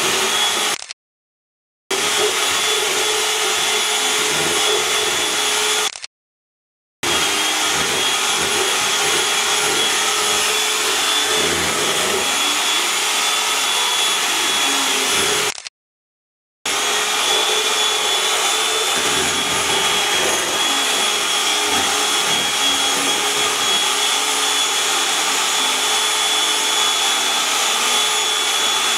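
Handheld electric mixer running steadily, its beaters whirring in fritter batter inside a covered plastic bowl. The sound cuts out completely three times, for about a second each time.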